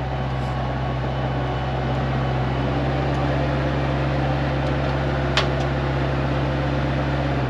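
A motor running with a steady low hum, with one sharp click about five and a half seconds in.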